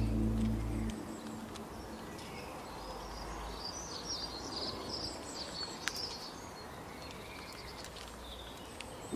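Faint outdoor ambience with small birds chirping in short high calls, busiest in the middle, and one sharp click near the six-second mark. Background music fades out in the first second.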